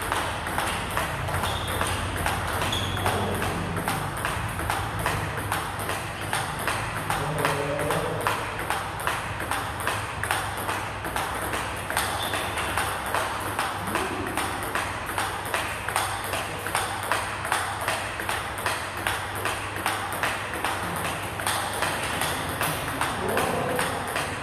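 Table tennis rally: the plastic ball clicks sharply and evenly, a few times a second, off a Butterfly Fan Zhendong ALC blade faced with Dignics 09C rubber, off the table, and off the blocker's paddle in a steady back-and-forth.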